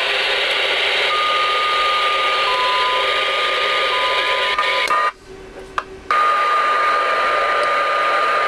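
Band noise and static from a Ranger RCI-2970N2 ten-meter radio's speaker on receive, with steady heterodyne whistles over the hiss. The receive audio cuts out for about a second midway, then comes back.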